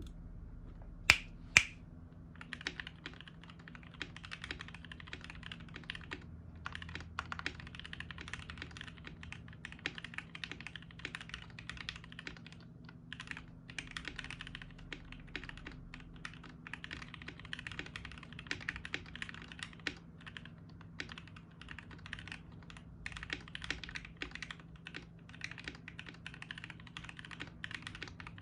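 Typing on a KBD67 Lite R2 mechanical keyboard with Gateron KS-3 black linear switches: a steady stream of key clacks with a few short pauses. About a second in, two sharp, louder clicks come just before the typing starts.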